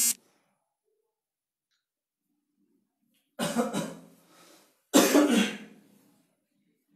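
A man coughs twice, loudly, about a second and a half apart.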